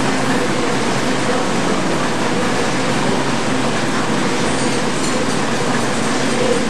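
KBA Rapida B2 four-colour sheetfed offset printing press running steadily: a dense, even mechanical noise with a faint steady hum underneath.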